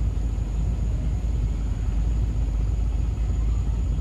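Low, steady rumble of a vehicle driving slowly, heard through an open side window, with wind and road noise fluttering on the microphone.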